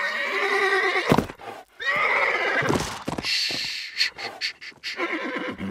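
Horse whinnying and neighing in several agitated calls while it rears, with a few sharp hoof stomps in between. This is a cartoon sound effect.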